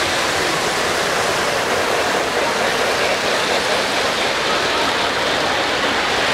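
Steady, even din of a crowded hall, many voices blurred together, with O-scale three-rail model trains running on the layout.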